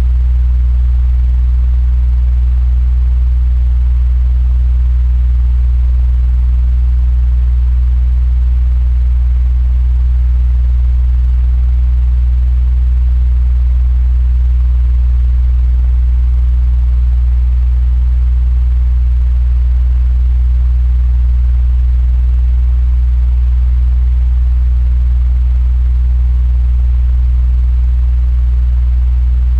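Electric fan running steadily: a loud, even low hum with a faint hiss of moving air above it.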